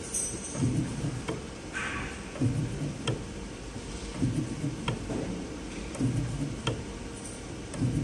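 Automatic soldering robot running a repeating cycle. About every two seconds there is a short low motor whir as the axes move, followed by a sharp click, with a brief hiss once about two seconds in.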